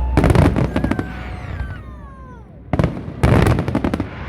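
Fireworks exploding in two rapid volleys of crackling bangs, one at the start and another about three seconds in. Between the volleys come falling whistle-like tones.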